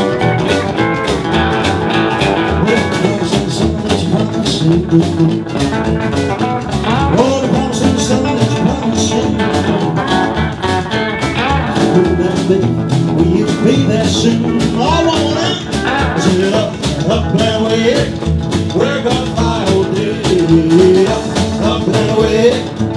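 Rockabilly band music: a guitar carries the lead over a steady, driving beat.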